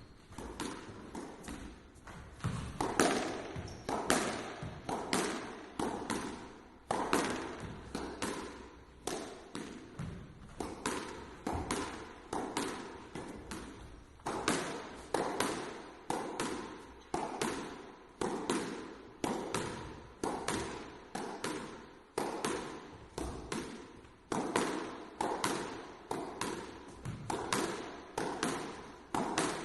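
A lone squash player rallying: the ball cracks off the racket and slaps the walls and floor in a steady rhythm of about one to two sharp hits a second, each ringing briefly in the court.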